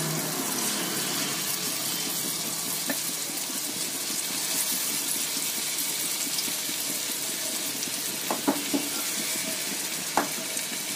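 Chana dal kebab patties shallow-frying in hot refined oil in a kadhai, a steady sizzle. A few light knocks come near the end as more patties are laid in.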